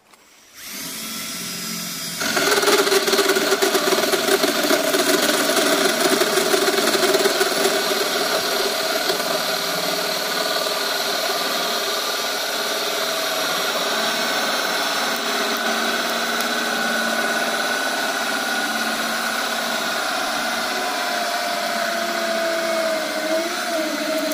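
Cordless drill spinning a new bi-metal hole saw through 25 mm chipboard. The motor starts free-running, the saw bites into the board about two seconds in, and it cuts steadily from there, with the pitch sagging slightly near the end.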